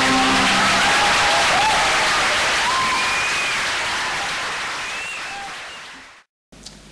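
Audience applauding as the choir's final held chord dies away in the first half second, with a few whoops rising over the clapping. The applause slowly fades and cuts off abruptly near the end.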